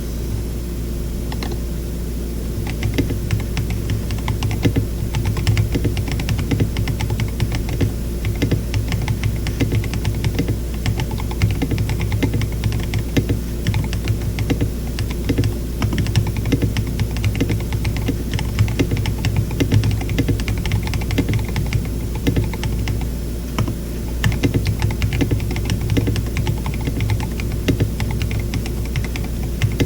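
Typing on a KBD67 Lite mechanical keyboard with tactile switches (Glorious Panda stems in Zealios v2 housings) and KAT Alpha keycaps: a continuous run of key clacks that starts about two seconds in, with a short pause near three-quarters of the way through. A low steady hum sits underneath.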